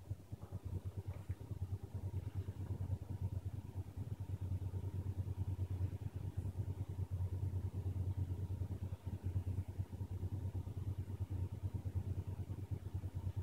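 A steady low rumble throughout.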